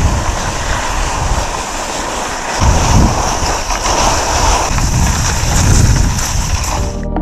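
Cross-country skis and poles scraping and gliding over snow as skiers set off at a mass start, a loud steady rushing noise with irregular low thumps of wind buffeting the microphone.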